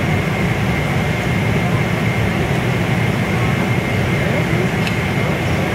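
Steady airliner cabin noise in flight: an even low rumble of engines and rushing air with a faint, steady high whine over it.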